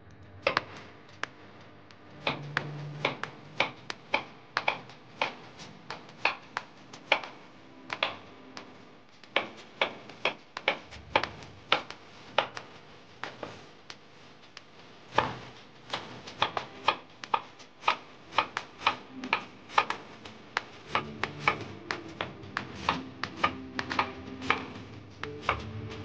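Kitchen knife slicing carrots and lotus root on a wooden cutting board: irregular sharp knocks of the blade striking the board, about one to three a second.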